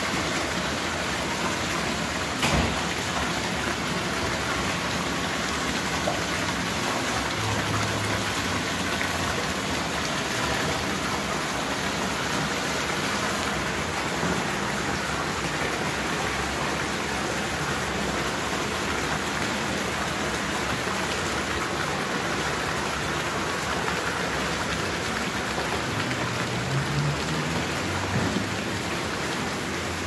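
Water from a stone-tiled indoor wall fountain pouring down the walls and splashing steadily into a shallow tiled pool, a continuous rain-like rush. There is one brief knock a couple of seconds in.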